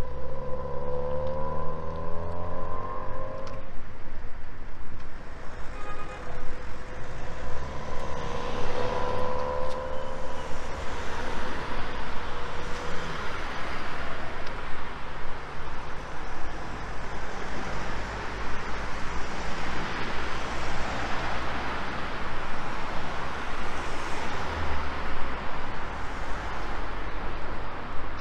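Street traffic: cars driving past close by, with an engine hum near the start and again around nine seconds, then the hiss of tyres swelling as cars go by through the middle, over a steady low rumble.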